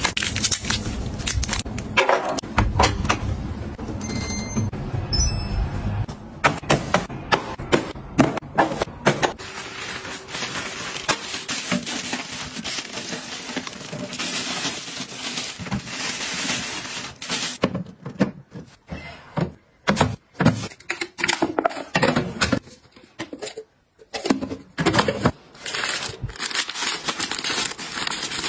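A run of handling sounds: plastic packaging rustling, crinkling and tearing, with clicks and knocks of things being set down and fitted. There are short electronic beeps a few seconds in.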